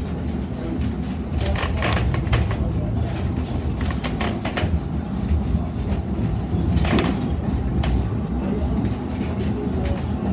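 Narrow-gauge railway carriage running along the track, heard from inside: a steady rumble with irregular clicks and clanks from the wheels and couplings.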